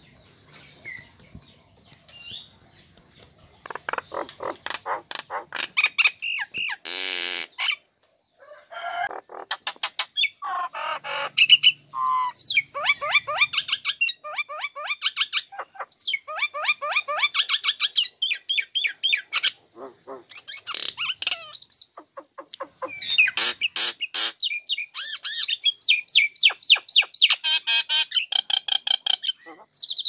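Female common myna singing loudly from close by: a long, varied song of rapid chattering notes, clicks and whistles, starting in earnest about four seconds in after a few faint calls, with a brief pause near the eight-second mark.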